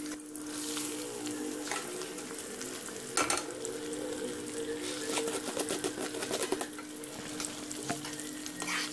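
Soaked, drained chana dal (split Bengal gram) deep-frying in very hot ghee: a busy sizzle full of crackles and pops as the lentils bubble hard in the oil. A faint steady hum runs underneath.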